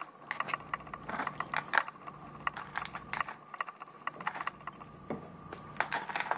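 Hand-turned pepper mill grinding peppercorns: a quick, irregular run of crunching clicks.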